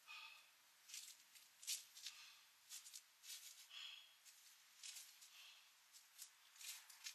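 Faint, irregular swishes and scuffs: clothing whipping and trainers sliding on wet tarmac as a person moves quickly through a Tang Soo Do form, several short rustles a second with gaps between.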